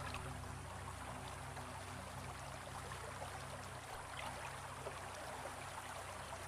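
Steady trickle of running shallow water, with faint small drips and splashes.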